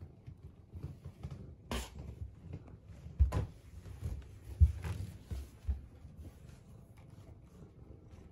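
Hard plastic Elizabethan collar on a cat knocking and bumping against objects and the floor as the cat moves about. There is a sharp click about two seconds in, then several dull thumps, the loudest a little past the middle.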